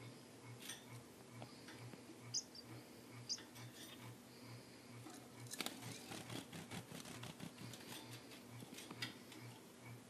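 Small caged finches giving short, high single chirps, with a spell of rapid clicking and rustling from about midway as the birds hop and flutter about the perches. A faint, regular low pulse, about two to three a second, runs underneath.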